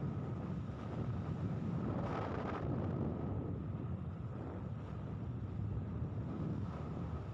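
A vehicle's engine running steadily while moving, with wind rumbling on the microphone; a brief hiss about two seconds in.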